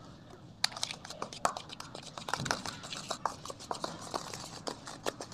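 A spoon clicking and scraping against a small bowl, stirring powdered sitopaladi churna into honey: a quick, irregular run of small clicks that starts about two-thirds of a second in.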